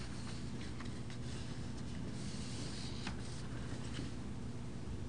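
Quiet room tone: a steady low hum with faint rustles and a few soft clicks.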